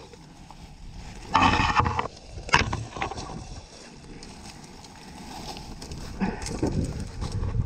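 Dry leaves and twigs crunching and rustling in irregular bursts as a person crawls on hands and knees through dry brush, loudest about a second and a half in.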